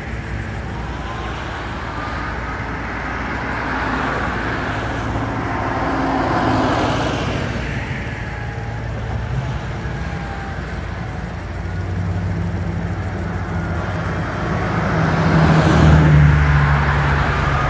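Road traffic passing, with vehicles swelling up and fading away twice. Near the end, a heavy vehicle's engine grows loud and close.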